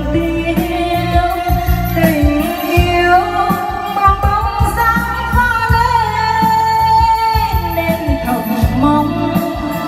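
A woman singing a Vietnamese song into a microphone over electronic keyboard accompaniment with a steady bass beat, holding one long, wavering note in the middle.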